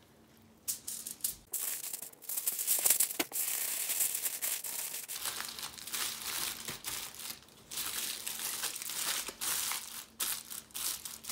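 Aluminium foil crinkling and crumpling in irregular bursts as it is folded and pressed by hand around a piece of beef, starting about a second in.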